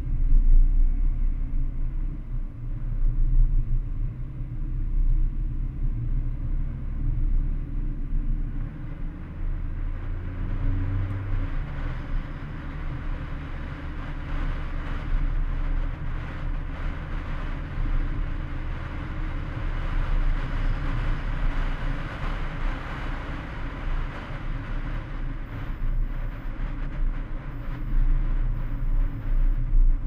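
Mercedes-AMG A45 being driven, heard mostly as wind noise and low road rumble, with the engine barely audible under the wind. A hiss builds from about ten seconds in and eases near the end.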